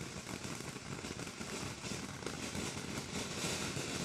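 Tailgater ground fountain firework spraying sparks: a steady hiss thick with fine crackling.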